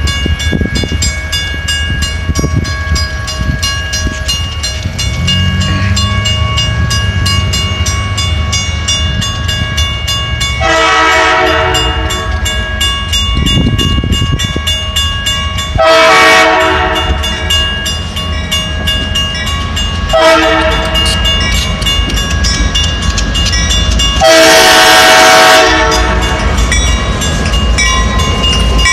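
Grade-crossing bell ringing steadily while an approaching diesel freight locomotive sounds its air horn in the grade-crossing pattern: four blasts, long, long, short, long. Under them the diesel engines rumble, growing louder as the locomotives reach the crossing near the end.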